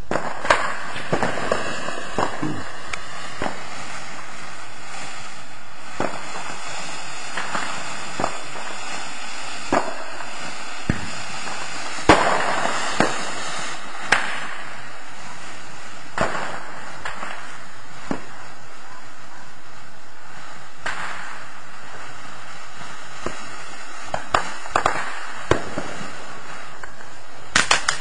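Ground fountain firework spraying sparks with a steady hiss, broken by scattered sharp crackles and pops. Near the end comes a rapid run of crackling pops.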